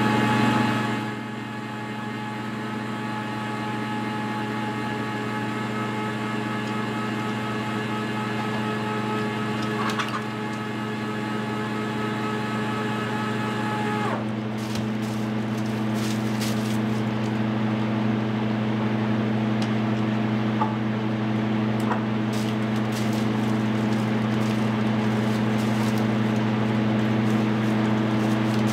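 Steady electric motor hum, like a running fan, with a set of higher tones that drops out about halfway through; a few faint ticks and taps in the second half.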